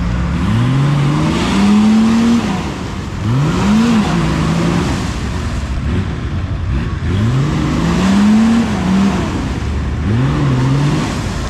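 A 4x4 off-roader's engine is revved hard four times, each time climbing in pitch and then dropping back. The revving is typical of a clutch being slipped hard enough to burn it.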